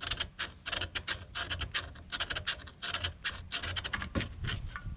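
Hand file rasping against rusty metal in quick, uneven back-and-forth strokes, several a second, cleaning rust out of the mounting bore for a new rear wheel bearing.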